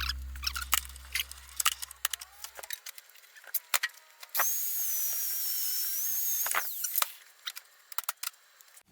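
Background music fading out, then scattered clicks and taps of shop work, and a power tool running with a steady high whine for about two seconds in the middle.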